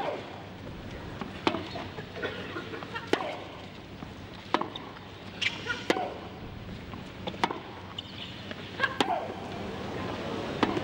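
Tennis balls struck back and forth in a long baseline rally on a hard court, a sharp racquet hit about every second and a half.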